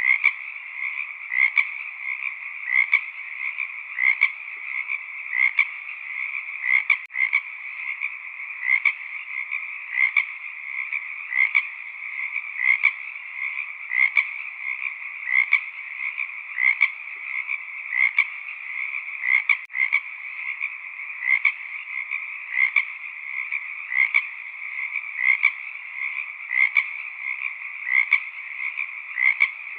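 Frog chorus: many frogs calling at once in a dense, steady trill, with one louder call repeating about every second and a half.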